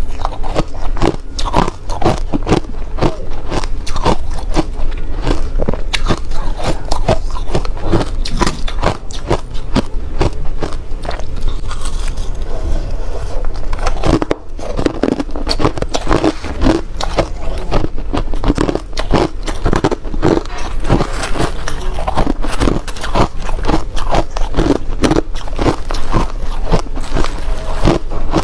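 Hard crushed ice being bitten and chewed close to the microphone: a dense, irregular run of loud crunches and cracks, with a brief lull about twelve seconds in.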